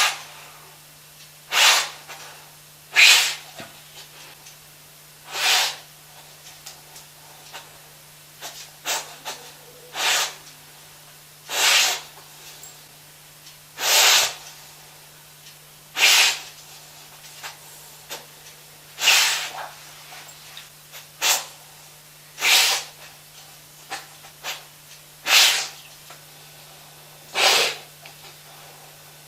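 A dog sniffing loudly close to the microphone: short, sharp sniffs through the nose about every two seconds, with small faint snuffles between them.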